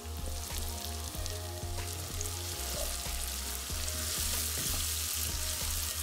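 Diced tomatoes and fried onions sizzling in hot oil in a non-stick frying pan while a wooden spoon stirs them. The sizzle swells about four seconds in, and light scrapes of the spoon come through. Background music plays underneath.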